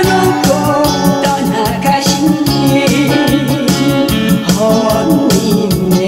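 Korean trot song performed live: a woman singing into a microphone over a backing track with a steady beat.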